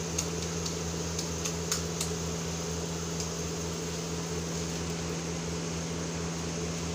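A steady low mechanical hum, like a fan, with a few faint clicks in the first two seconds.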